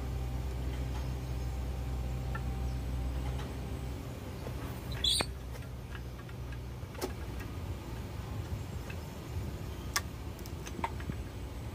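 Sharp clicks and knocks as pangie seeds are handled and set into a steel lever-operated seed cracker. There is a brief high squeak about five seconds in, and a low steady hum fades out about three seconds in.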